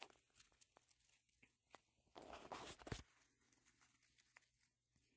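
Near silence, with a few faint ticks and a brief soft rustle about two seconds in.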